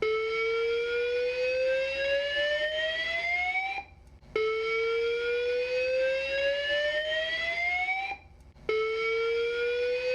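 Building fire alarm sounding the slow-whoop evacuation tone: a pitch that rises steadily for about four seconds, stops for half a second, then starts again from the bottom, heard three times.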